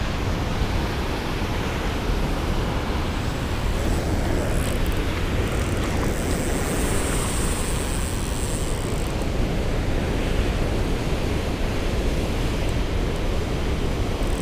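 Water rushing over and below a spillway, a steady, loud rush, with a low rumble of wind on the microphone.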